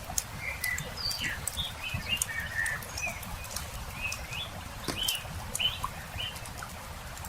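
Small birds chirping in short, quick calls, over the sharp pops and crackles of a wood campfire and a low rumble.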